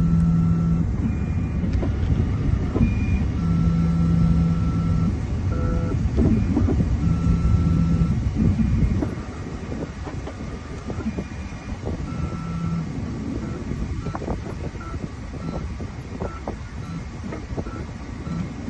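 Repeated electronic beeps over a steady low rumble: tones of up to about a second, then a run of short ones, with scattered clicks of handling. The rumble drops to a lower level about halfway through.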